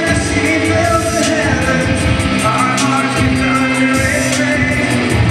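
Live band playing a rock-styled Christian rap song, with vocals over a steady drum beat with cymbals, guitar and keyboard.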